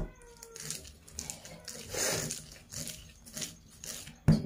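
Risen dough being punched down and pressed by hand on a plastic sheet to knock out the air: soft squishes and pats with the plastic rustling, coming in several short bursts. A sharp click near the end.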